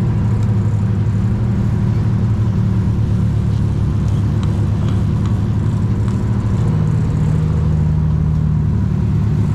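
Sport-fishing boat's engines running steadily at trolling speed, a loud, even low drone.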